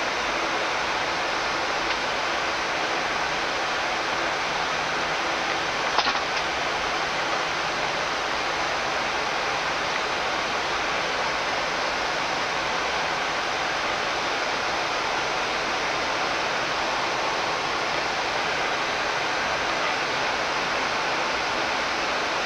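Steady rushing flight-deck noise of a Boeing 787-9 taxiing, the airflow of the cockpit ventilation and the engines at taxi power, with a single sharp click about six seconds in.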